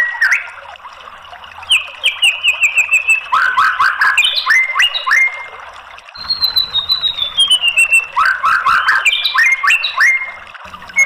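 White-rumped shama singing loud, varied phrases: a run of repeated notes, then a burst of quick sharp up-and-down notes, a falling trill, and another burst of quick notes, with short pauses between phrases.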